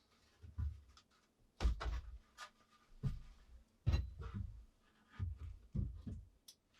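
A string of irregular dull thumps and knocks, about eight or nine, each short, with quiet gaps between.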